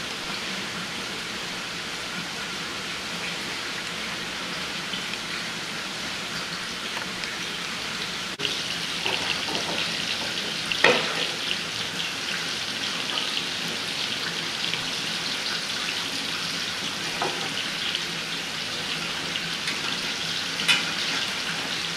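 Breaded fish fillets frying in hot oil in a stainless steel skillet, a steady sizzle that becomes louder about a third of the way in. A few sharper clicks sound over it, one about halfway and one near the end.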